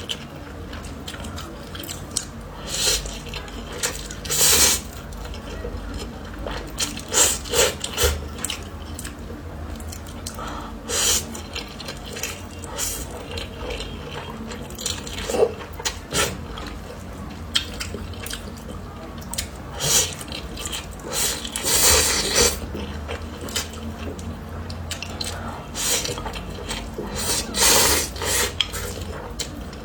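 Wet slurping and chewing of spicy instant noodle soup, in irregular short bursts with pauses between.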